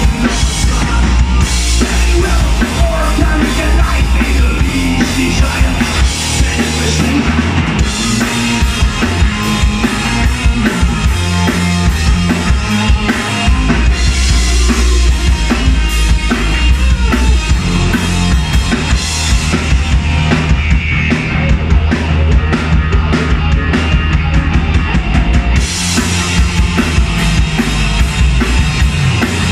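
Live rock band playing loud and without a break: electric guitar, electric bass and a drum kit with kick and snare.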